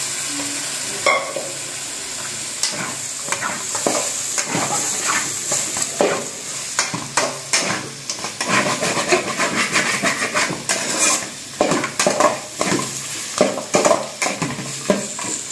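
Mutton pieces and masala sizzling in a metal kadai while a flat metal spatula stirs and scrapes the pan. There are frequent irregular clinks and scrapes over a steady frying hiss, and the stirring grows busier from about six seconds in.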